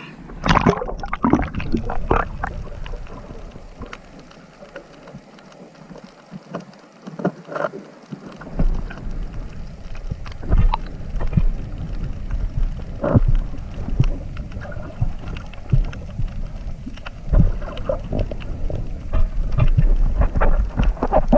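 Water splashing and churning against the camera, with a heavy low rumble and irregular knocks.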